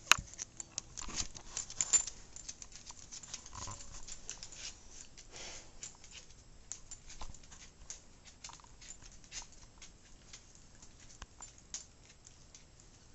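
A small dog's nails clicking on a hardwood floor as she gets up and walks, an irregular patter of ticks, loudest in the first couple of seconds and thinning out after.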